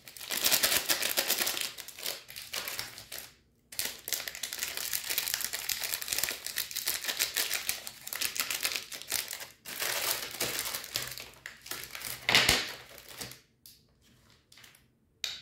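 Foil candy wrappers crinkling and crackling as they are handled and turned over in the fingers. The sound is dense and continuous, breaks off briefly at about three and a half seconds, has its loudest crackle at about twelve seconds, and is softer near the end.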